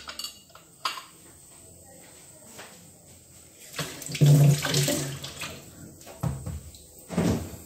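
Kitchen work sounds: a click, then a spell of running water lasting a second or two, then a couple of knocks near the end.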